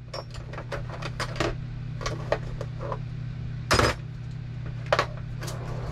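Metal kitchen utensils clicking and clattering as a hand rummages through a utensil drawer, with one louder clatter about two-thirds of the way through, over a steady low hum.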